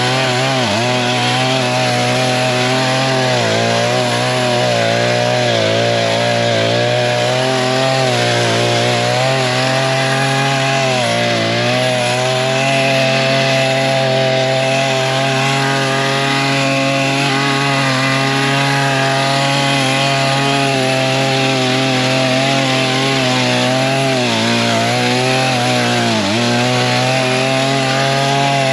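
Small gas engine of a wheeled brush cutter driving a chainsaw chain, running steadily at high throttle as it cuts long, stringy dry grass. Its pitch dips briefly three times as the grass loads the chain.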